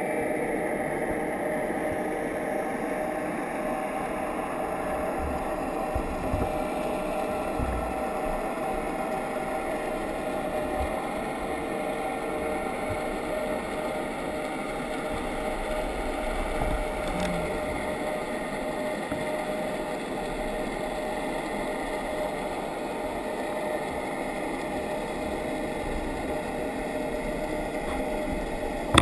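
Steady drone of a boat engine heard underwater, with several held tones that drift slightly in pitch.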